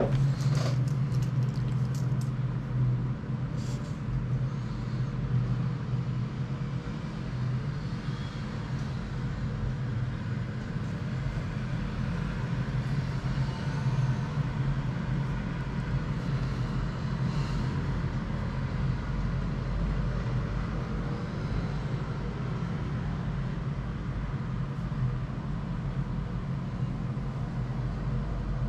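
Steady low rumble and hum, with a few sharp clicks and knocks in the first few seconds.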